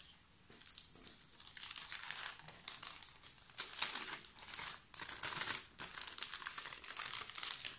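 Packaging crinkling and rustling as it is handled, a dense run of short crackles that grows busier about three seconds in.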